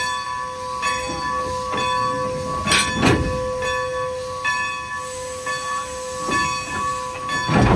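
Steam locomotive SRC 90 standing under steam at the tender end: a steady whine of several tones with hissing steam. Two louder bursts of noise break in, about three seconds in and near the end.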